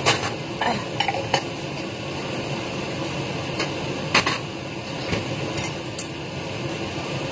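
Utensils clinking and scraping against a bowl as noodles are mixed with sauce: about a dozen scattered sharp clicks, the loudest about four seconds in, over a steady background hiss.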